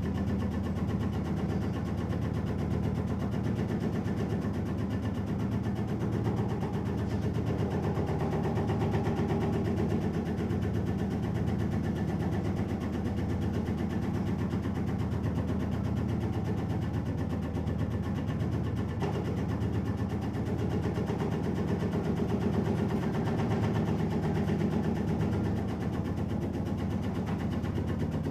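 Automatic tobacco shredding machine running steadily, its motor and cutter making an even mechanical drone.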